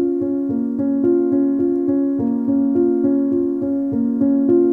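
Background music: a keyboard melody of struck notes in a steady, quick rhythm, about four notes a second.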